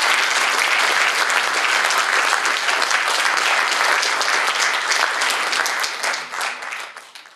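Audience clapping in sustained applause, dense and steady, then fading out over the last second or so.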